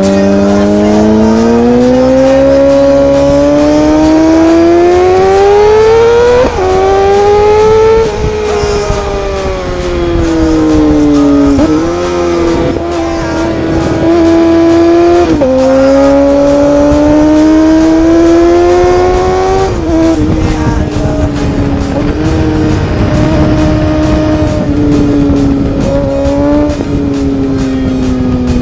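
Suzuki GSX-R 600 K6's inline-four engine heard from on board, climbing in pitch as it accelerates and dropping suddenly at each gear change, then falling in pitch as the bike eases off. Wind rushes over the microphone, stronger in the second half.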